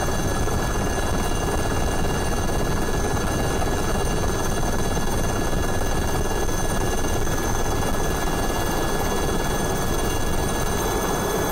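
Helicopter running steadily: a dense engine and rotor noise with several high, steady whine tones over it.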